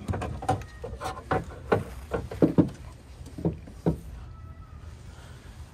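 A run of irregular metallic clicks and knocks from hand tools working the output-cable bolt on an alternator as it is fitted and tightened, dying away about four seconds in.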